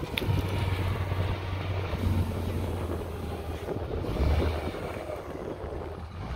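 Komatsu GD625A motor grader's diesel engine running as it works along a dirt road, with wind buffeting the microphone.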